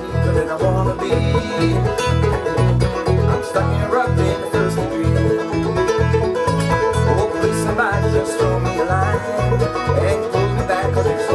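Live bluegrass band playing an instrumental break: banjo, mandolin and acoustic guitar picking over a steady beat from an electric bass guitar.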